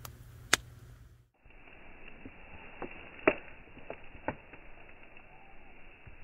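A spoon stirring a drink in a metal canteen cup, clinking sharply against the cup several times, the loudest clink about three seconds in.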